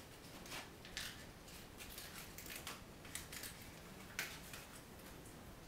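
Faint, scattered clicks and crinkles of a homemade rolled-paper-and-tape toy rifle being handled, with a sharper click about four seconds in.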